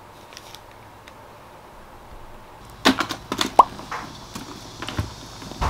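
Leather backpack being handled as a padded case is slid into it: a run of knocks and rustles starting about halfway through, with a short rising squeak among them and a heavier thump near the end.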